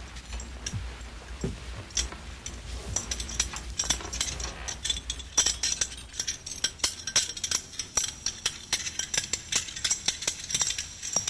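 Irregular rattling and clinking: a stream of small sharp clicks that grows denser and louder from about three seconds in.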